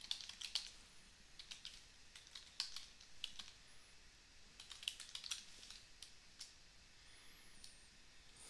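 Faint typing on a computer keyboard: irregular, quick keystrokes.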